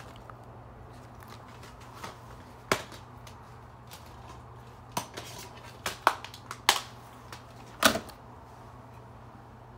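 Plastic DVD case being handled and opened, with a series of sharp clicks and snaps as the case and disc hub are worked; the loudest snap comes near the end.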